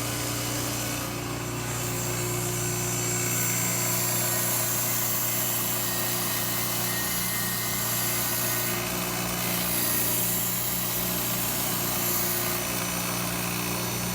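Belt grinder with a 2x36 abrasive belt running steadily with a low motor hum while a hoof knife's edge is ground on the belt. The hiss of steel on the belt builds about three seconds in and eases near the end.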